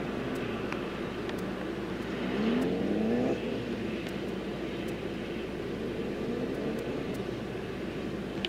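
A work-vehicle engine running steadily and revving up several times, each rev rising in pitch. The strongest rev peaks about three seconds in and drops off suddenly. A few light clicks come through.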